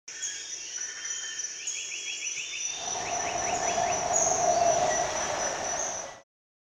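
Crickets or other insects chirping steadily, with runs of fast repeated chirps. About three seconds in a rushing noise swells up, and everything cuts off abruptly about six seconds in.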